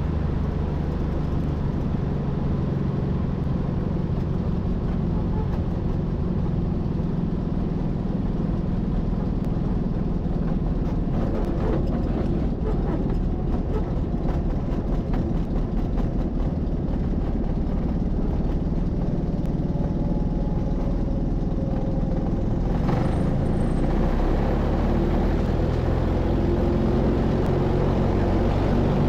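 Hummel Ultracruiser light aircraft's engine and propeller running steadily while it rolls along the runway, with wind and runway rumble around the open cockpit. It grows a little louder in the last few seconds, and there is a short click about two-thirds of the way through.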